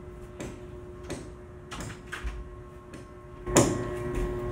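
Quiet room tone with a steady low hum and a few light knocks and clicks. A louder sudden noise comes in about three and a half seconds in and carries on.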